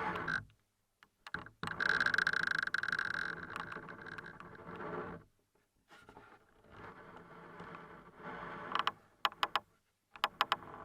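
Creaking picked up through a Schaller Oyster 723 piezo contact mic: a long drawn creak with a held squeaky tone starting about two seconds in and fading out around five seconds, then softer creaking and a few sharp ticks near the end.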